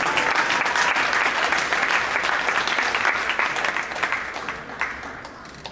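Applause from many hands clapping, fading away over the last second or two.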